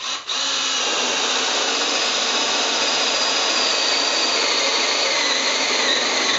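Black & Decker Firestorm 18-volt cordless drill boring a 16 mm spade bit into a timber board. It starts abruptly, falters for a moment just after starting, then runs steadily under load, its pitch sagging slightly later on.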